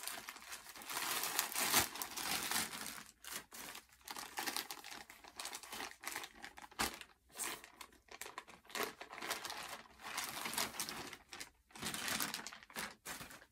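Plastic packaging crinkling and rustling on and off as a poly mailer and a clear plastic bag are opened and handled.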